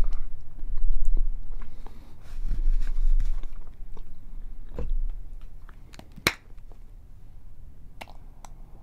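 Close-miked chewing of a mouthful of bacon and cheese, with wet crackles and low mouth noise. Later come a few sharp plastic clicks as a ketchup squeeze bottle is handled.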